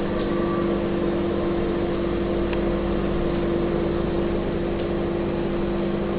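Microwave oven running on high power: a steady hum with a rushing noise under it.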